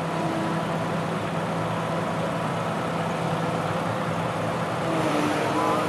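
Komatsu PC200-7 excavator's six-cylinder turbo-diesel engine running steadily with a low hum while the boom and arm are worked hydraulically, a little louder near the end.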